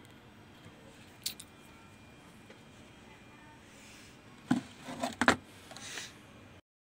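Clicks and a short cluster of clattering knocks from handling the opened amplifier's circuit board and wooden cabinet. Most of the knocks come together about four and a half to five seconds in.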